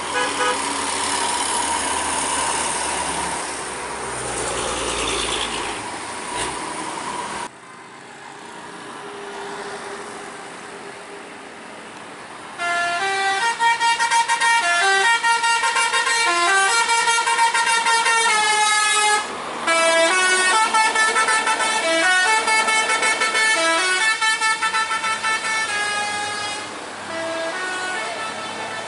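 Tour bus 'telolet basuri' musical air horn playing a quick tune of stepped notes for about fourteen seconds, with a short break partway through. Before it comes a stretch of traffic noise with a held horn-like tone.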